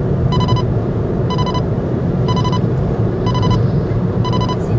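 Car's dashboard warning chime, a short high beep repeating about once a second, five times, over the low steady rumble of the car's cabin.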